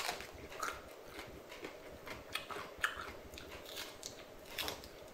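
A person chewing and biting into a raw green chili pod, with faint irregular crisp crunches.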